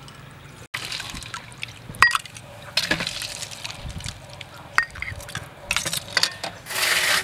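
A metal ladle clinks and scrapes against a stainless steel basin while a milky avocado dessert sloshes as it is ladled into a small bowl. There are sharp clinks throughout, and a louder rush of noise near the end.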